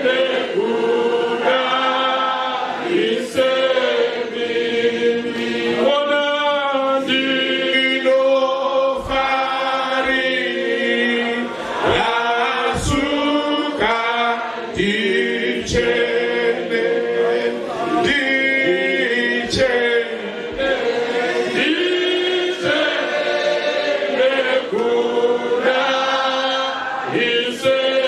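A church congregation singing a hymn together without instruments, many voices holding and changing notes. A few short low thumps sound in the middle.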